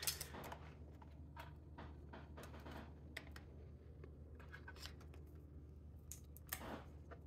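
Faint, scattered small clicks and rubbing as fingers tuck wires and press on the battery inside an opened laptop chassis, with a sharper click right at the start and another about six and a half seconds in.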